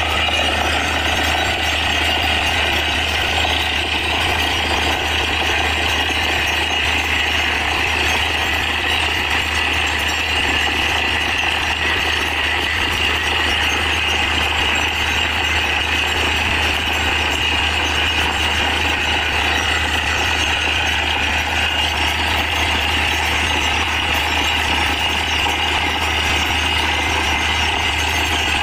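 Truck-mounted borewell drilling rig running steadily as it drills, its down-the-hole air hammer pounding while compressed air blows water and rock slurry out of the bore.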